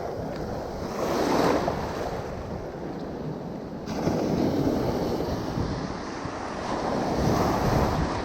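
Ocean surf washing in, swelling louder and easing off about every three seconds, with wind rumbling on the microphone.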